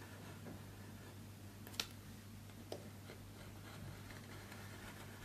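Faint scratching of a scalpel blade cutting through paper on a cutting mat, with a sharp click a little under two seconds in and a smaller one nearly a second later, over a low steady hum.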